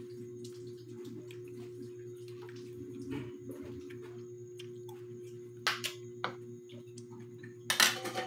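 A steady electrical hum, with a few light clinks of a metal spoon against bowls and a plate; the loudest clatter comes near the end as the spoon is set down on a ceramic plate.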